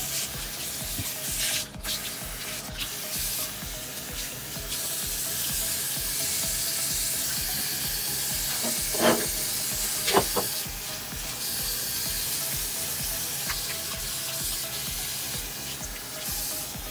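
Tap water running into a stainless-steel kitchen sink, a steady hiss. Two brief, sharp, louder sounds come near the middle.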